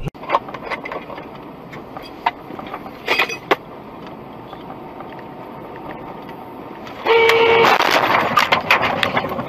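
Car road noise with scattered knocks; about seven seconds in a car horn sounds briefly, followed by a loud, dense noisy stretch with several sharp bangs.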